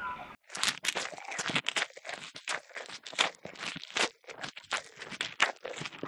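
Irregular crunching and rustling, many short crisp strokes a few times a second, starting abruptly just after the start.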